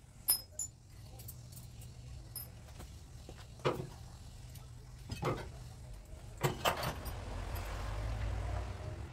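Metal hand tools and small steel parts clinking and knocking as they are handled at a stripped car's front wheel hub: a handful of sharp separate clinks, two of them close together about two-thirds of the way in, over a low steady hum.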